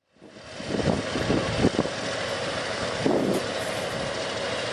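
Forklift engine running steadily while it holds a wooden roof truss aloft, with a few short knocks in the first couple of seconds.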